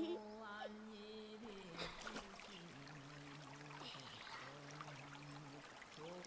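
A shallow stream trickles faintly over stones. A child gives a short giggle at the start, and low held tones sound in the middle.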